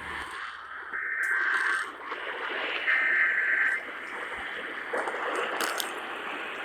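Emergency Alert System (SAME) digital header data bursts received over radio through heavy static: two short, shrill bursts, each under a second and about two seconds apart, with steady hiss between and after them.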